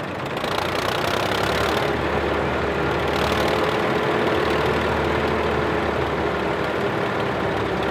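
Steyr 185a tractor engine running steadily while it pulls and drives a Claas Super Automatic-S pull-type combine threshing wheat. The engine and threshing machinery make one continuous drone with a steady whine, growing a little louder about half a second in.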